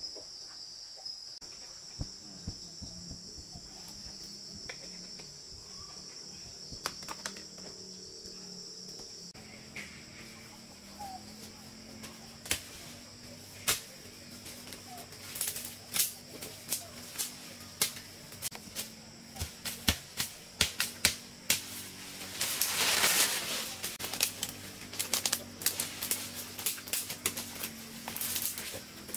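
Insects buzzing steadily and high-pitched. From about ten seconds in, footsteps crunch and snap through dry leaf litter and twigs, with a longer stretch of rustling a little after twenty seconds.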